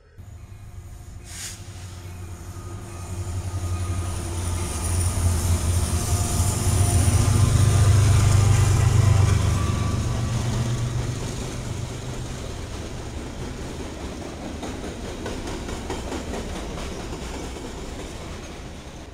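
A train rolling past close by: a heavy low rumble swells to its loudest about eight seconds in, then eases off as the train goes by.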